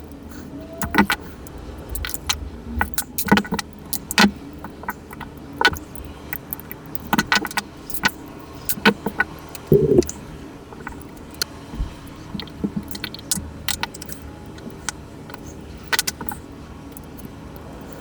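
Small metal clicks and taps, coming irregularly, from tools and parts of a Casio analog wristwatch being taken apart, with a heavier knock about ten seconds in.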